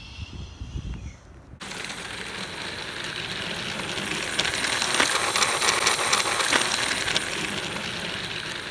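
Battery-powered Thomas toy engine running along plastic track, a dense rattling clatter of rapid clicks. It starts suddenly about one and a half seconds in, grows louder toward the middle and eases a little near the end.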